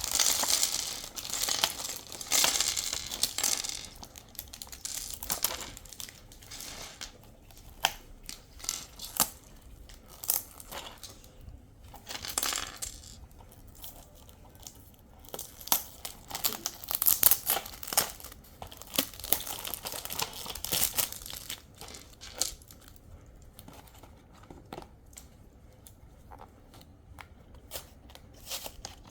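Plastic packaging crinkling and tearing, with many small hard plastic parts clicking and clattering as a snap-together model kit is unpacked and handled. The crinkling is heaviest in the first few seconds and again about twelve seconds in.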